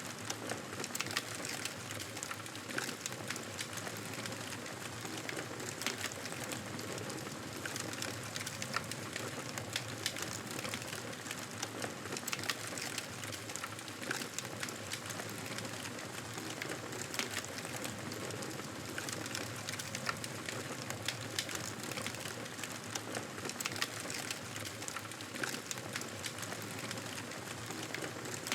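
Fire crackling in a fireplace: a steady hiss with frequent small pops and snaps.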